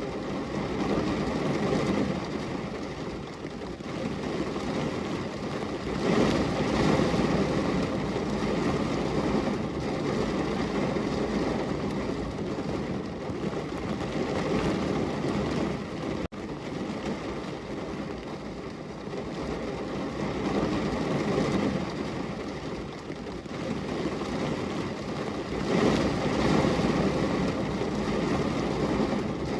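Heavy rain pouring on a window, a steady low rushing noise that swells louder every several seconds. It cuts out for an instant about sixteen seconds in.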